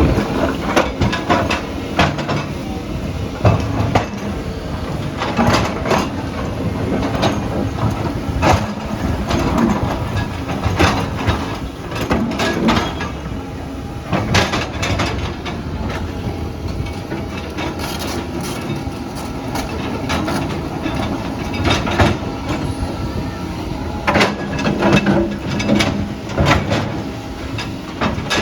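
Diesel engine of a tracked earthmover running steadily, with repeated clanking and knocking from its metal tracks and from the work throughout.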